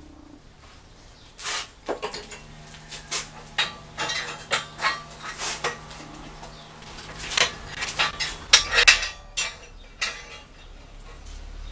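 Irregular metallic knocks and clinks of a bent steel-rod wine bottle holder frame being handled and knocked against a steel workbench, with a tight cluster of sharper clinks near the end.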